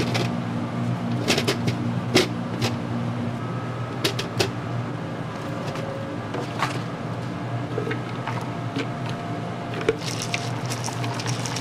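Restaurant kitchen sounds: a steady low hum under scattered sharp clicks and knocks of handling, turning to a dense crackling near the end.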